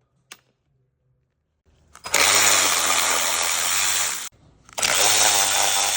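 A 1/4-inch Snap-on cordless electric ratchet running in two bursts of about two seconds each, backing out the 10 mm bolts that hold the coil packs. A small click sounds just before the first burst.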